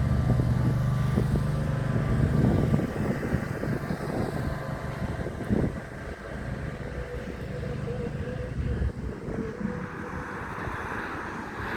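Ford Cougar's engine running, a steady low hum that is loudest for the first few seconds and then settles quieter.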